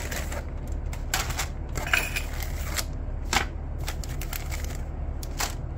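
Plastic-bagged model kit parts and a cardboard kit box being handled: irregular crinkles and light taps over a steady low hum.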